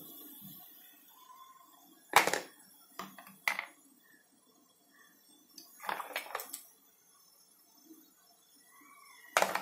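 Plastic lids and a knife knocking and clicking against a plastic tray as they are picked up and set down: a sharp knock about two seconds in, a few lighter clicks just after, a cluster near the middle and one more near the end.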